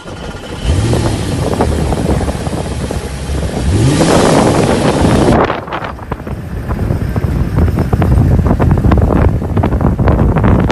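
Vehicle engine revving up twice, its pitch rising each time, with wind buffeting the microphone. About five seconds in, the sound changes to a steady rush of wind and driving noise with many quick knocks and rattles.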